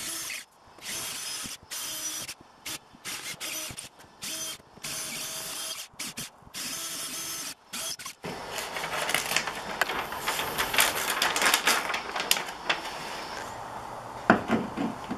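Cordless drill motor whirring in short stop-start spurts, then running steadily as the bit grinds into the wall, drilling holes for wall anchors. Near the end, two sharp knocks as a hammer strikes at the wall.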